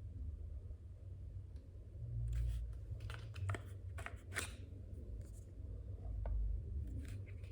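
Handling noise: a run of short clicks and rustles over a low rumble on the microphone, with no motor or fan running.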